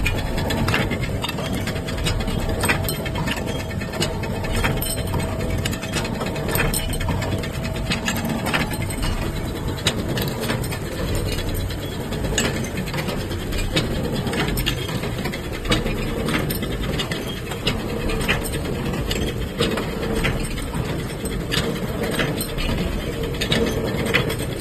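Automatic L-bolt threading and bending machine running: a steady mechanical clatter with frequent sharp clacks from its rod feed and forming mechanisms.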